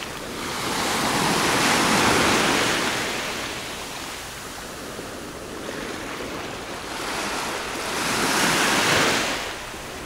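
Small sea waves washing up the beach and drawing back. Two swells of surf noise, the first loudest about two seconds in and the second near the end, with a lower wash between them.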